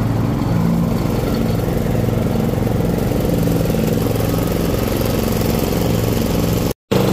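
Snapper rear-engine riding mower with a modified gear-mesh transmission, its engine running steadily under load while it drives and mows through wet grass. The sound drops out for an instant near the end.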